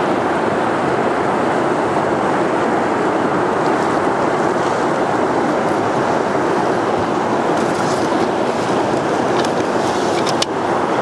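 Fast-flowing river current rushing steadily past a moored inflatable boat, a dense, even rush of water. A few light clicks come near the end.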